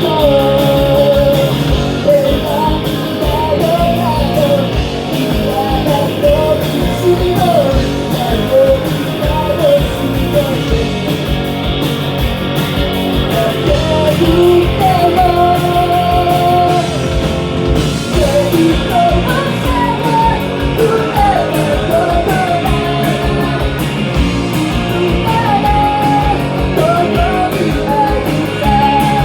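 A rock song performed live: a singer's melody over electric guitar and a steady drum beat.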